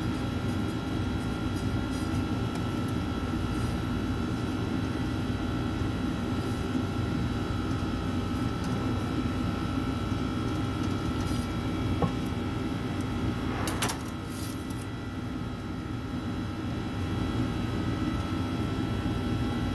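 Steady hum of kitchen machinery with several fixed whining tones. A sharp click comes about twelve seconds in and a brief scraping noise just under two seconds later.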